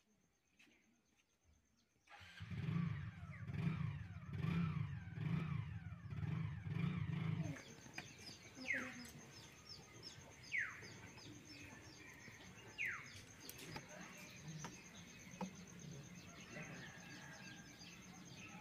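A low, pulsing engine hum starts about two seconds in and swells and fades about once a second for some five seconds before dropping away. After that a bird gives three sharp falling calls, about two seconds apart, over quiet background.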